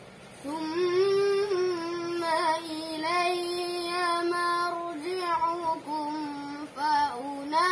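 A boy's voice chanting Quran recitation in the melodic tilawah style: a long drawn-out melodic line of held notes with small wavering ornaments, starting about half a second in, with short rising flourishes near the end.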